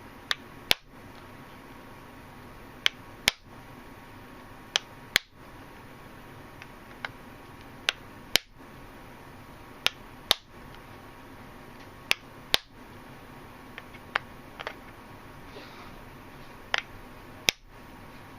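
A knife blade being lightly tapped into the glued seam of a plastic laptop battery pack to split the case open. Sharp taps, mostly in pairs about every two seconds.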